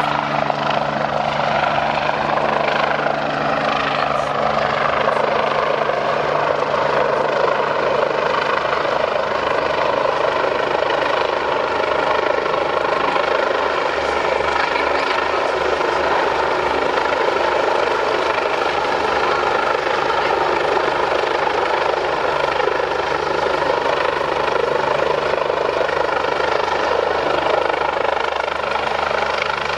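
BK-117 twin-turbine helicopter flying a display pass, its main rotor beating and its turbines whining steadily, with several high tones held over the fast low rotor pulse.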